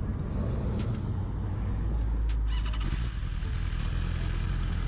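A sport bike riding along: its engine running under a steady low rumble of wind rushing over the helmet-camera microphone.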